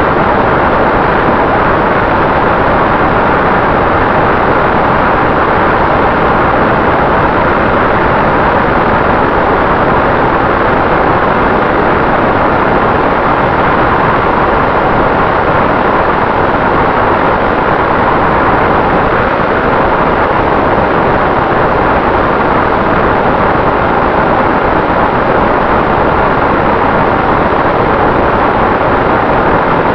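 Wind rush and propeller noise from a Volantex Ranger 757-3 electric RC plane in cruising flight, heard through its onboard camera: a loud, even rush with a faint steady whine above it.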